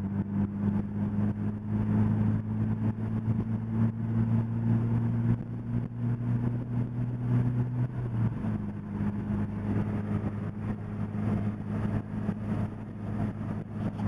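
2005 Scion xB's 1.5-litre four-cylinder engine heard through a newly installed replacement exhaust system while driving, with no leak at the engine end. A steady low drone that is not very loud; its pitch steps down slightly about eight seconds in.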